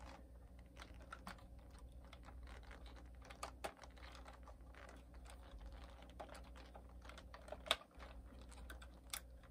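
Faint, scattered small plastic clicks and fiddling as a nylon zip tie is threaded around the receiver's antenna cable and pulled through its catch on a plastic RC truck chassis, with a couple of sharper clicks near the end.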